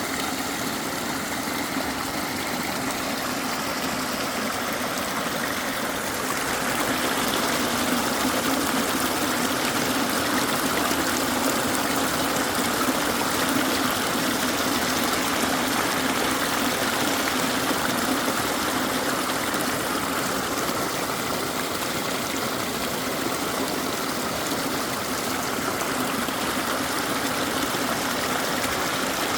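Water flowing in a stream, a steady rushing and trickling that grows a little louder about six seconds in.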